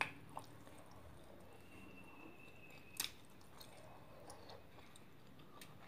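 Quiet room tone with a few faint clicks, the sharpest about three seconds in, and a faint thin high tone held for about a second and a half just before it.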